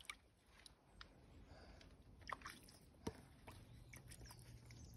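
Near silence with a few faint wet squishes and soft taps as a small plastic toy figure is dabbed into mud.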